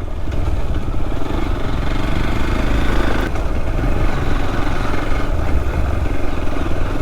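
Motorcycle engine running steadily while the bike is ridden along the road, with a continuous low rumble.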